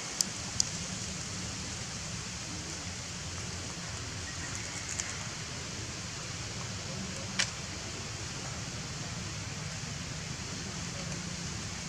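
Steady outdoor background hiss with a low hum under it. Three short sharp clicks break it: two within the first second and one about seven and a half seconds in.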